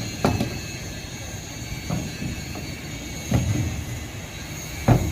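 Heavy-equipment work: a steady machinery hum with four sharp metallic knocks about a second and a half apart, the last near the end loudest.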